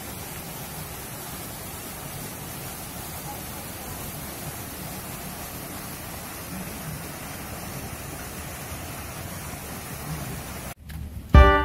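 Steady, even outdoor hiss with no clear source, cutting off abruptly near the end; loud keyboard music starts just after.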